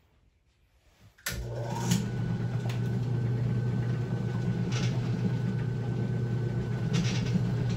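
Bowling ball spinner's electric motor switched on about a second in, then running with a steady hum while a polish cloth is held against the spinning ball.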